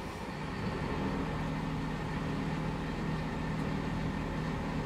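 Diesel engine of a heavy-haulage truck running steadily with an even low hum, a little louder from about half a second in.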